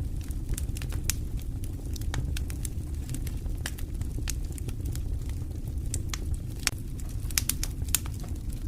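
Wood campfire crackling: irregular sharp pops and snaps, several a second, over a steady low rumble, with a few louder snaps near the end.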